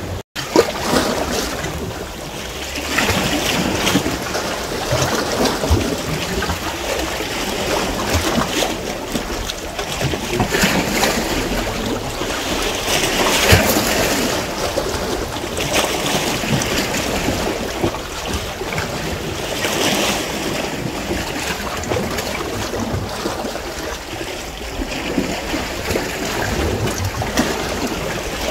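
Sea waves washing against a rocky shore and concrete ledge, swelling and easing every few seconds, with wind rumbling on the microphone.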